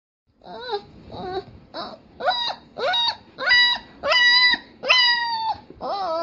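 A puppy crying in a run of about nine whimpering cries, slowed down so they sound lower and drawn out. Each cry bends up and then falls, and they grow longer and louder toward the middle.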